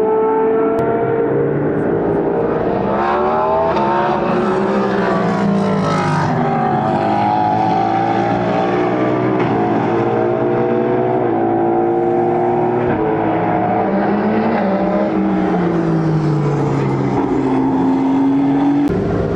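Endurance race cars passing at speed, several engines overlapping. Their notes rise as they accelerate and drop in pitch as each car goes by.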